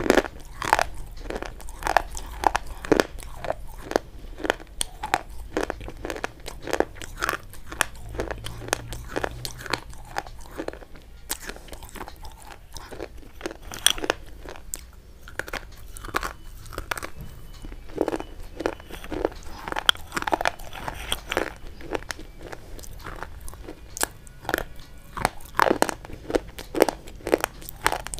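Close-miked biting and chewing of hard, brittle white chalk-like sticks: a run of sharp, irregular crunches and snaps, several a second.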